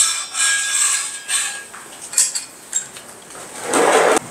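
Metal clanks and clatter as a backplate harness and its tank strap are set against a small scuba tank, with a brief ringing. A few lighter knocks follow, then a short scraping rustle of strap webbing near the end.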